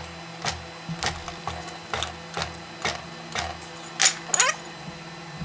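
Fly press hot-punching a hole through a red-hot tong blank: a run of sharp metallic knocks with a low thud under each, about two a second, and two louder ringing clanks a little after four seconds in.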